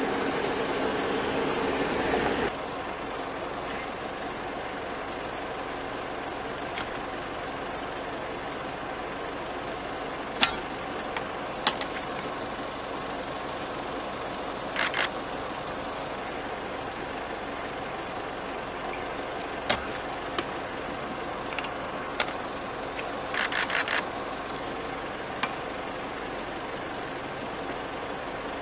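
Vehicle engine idling steadily, with a louder hum for the first couple of seconds, then a steady low running noise. Scattered sharp knocks come through it, with a quick run of clicks about three-quarters of the way in.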